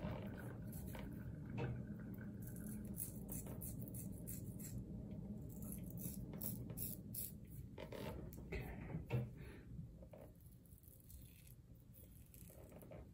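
Above the Tie Atlas H2 double-edge safety razor scraping through lathered beard stubble in a series of short strokes, thinning out after about eight seconds. A single low knock about nine seconds in, over a steady low hum.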